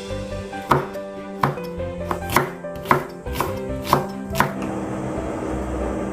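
Kitchen knife slicing a red chili and green onion on a wooden cutting board, a sharp knock of the blade on the board every half second or so, stopping about four and a half seconds in. Background music plays throughout.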